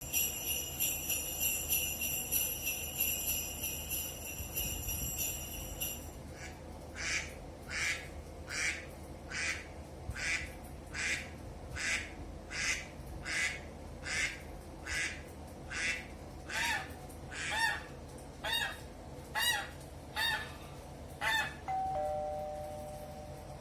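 Bells jingle for about six seconds. A rubber squeaky toy is then squeezed about twenty times, roughly one squeak every three quarters of a second. Near the end comes a two-note doorbell-style chime, a high note then a lower one.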